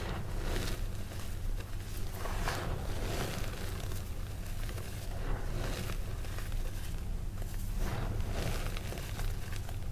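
Hands scooping, squeezing and sifting loose red gym chalk powder, soft powdery crunching and rustling that swells every second or two. A steady low rumble runs underneath.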